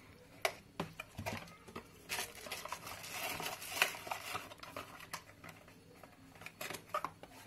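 A computer mouse being unwrapped and handled: its plastic wrapping rustles and crinkles, with small scattered clicks and taps, busiest a couple of seconds in.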